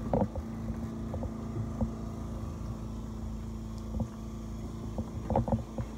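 An engine running steadily with a low, even hum, with a few light knocks of footsteps on the wooden raft deck.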